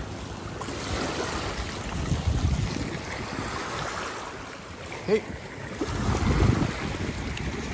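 Small waves washing over a pebble beach, with wind buffeting the microphone in gusts that swell about two seconds in and again near the end.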